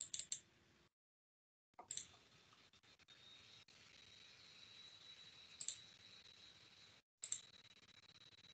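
Near silence with a few faint computer mouse clicks: three quick ones at the start, then single clicks about two seconds in, near the middle and near the end, over a faint hiss that cuts out to total silence twice.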